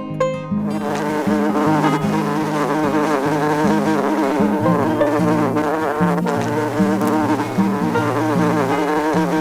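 Housefly buzzing continuously, its pitch wavering up and down as it flies.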